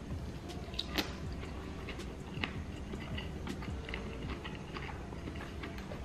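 A man chewing a mouthful of soft cheese grits close to the microphone, with faint wet mouth clicks and smacks scattered throughout.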